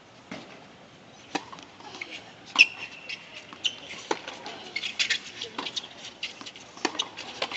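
Tennis ball struck by rackets and bouncing on a hard court during a doubles rally: a series of sharp pops a second or so apart, the loudest about two and a half seconds in, followed by a brief high squeal and quick scuffs of shoes on the court.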